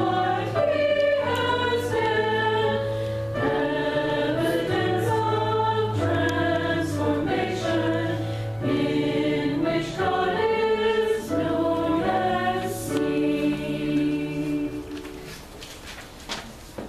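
Voices singing a hymn with keyboard accompaniment, moving through sustained chords over a bass note, then ending on a held final chord that fades away about fifteen seconds in.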